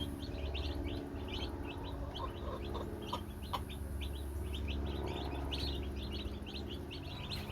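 A brooder full of meat chicks peeping: many short, high chirps overlapping in a dense, continuous chorus, over a steady low hum.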